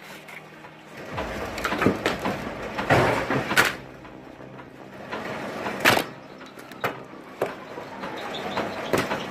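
Firewood being split and handled: a series of sharp knocks and cracks, irregularly spaced a second or two apart, over a low background noise.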